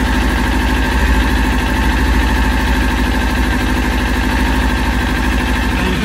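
2020 Kawasaki Ninja 400's parallel-twin engine idling steadily, freshly started and still cold, without revving.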